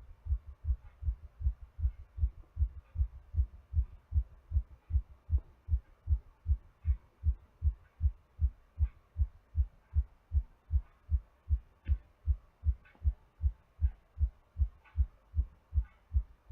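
A human heartbeat recorded close up, in recovery after exercise: a steady, even rhythm of low lub-dub thumps.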